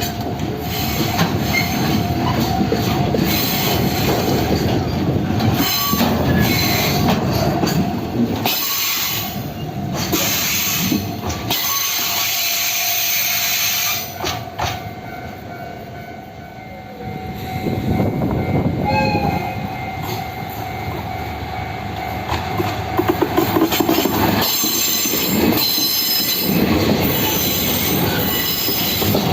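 Freight train rolling through a level crossing on the non-electrified Kashima Rinko Line: wagon wheels clacking over the rails and squealing, dipping quieter for a few seconds midway before the wagons' clatter returns.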